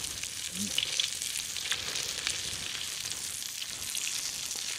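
Fish fillets sizzling on the griddle pan of a portable gas stove: a steady hiss with small crackles and pops.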